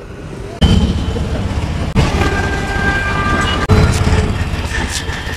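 Street traffic with three-wheeler auto-rickshaws driving past close by: a loud, low rumble that comes in about half a second in and swells again around two and four seconds.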